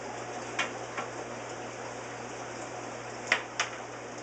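Glass pane knocking lightly against the glass of a filter tank as it is set into place: a few light clicks, with two sharper ones close together near the end, over a steady low hum.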